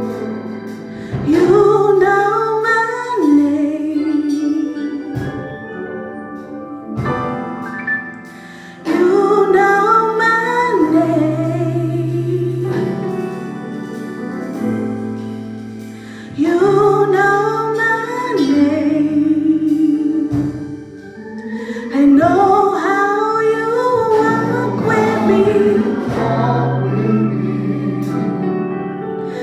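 Gospel singing with instrumental accompaniment: long ornamented vocal phrases that swoop in pitch, each starting about every six to eight seconds, over steady held chords and bass notes.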